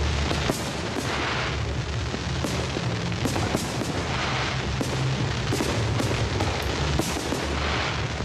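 Fireworks display: aerial shells bursting with many sharp bangs in quick, irregular succession, over loud music with a steady bass.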